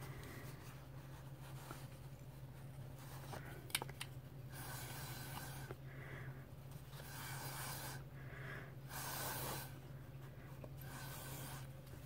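Soft rubbing and rustling of a taped sheet of Duralar plastic film being lifted and tilted by hand to slide wet alcohol ink around, coming in short spells every second or two over a steady low hum.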